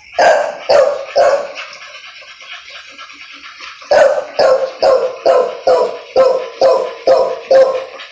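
A dog barking repeatedly: three barks in the first second and a half, then after a pause a quick run of about nine barks, roughly two a second.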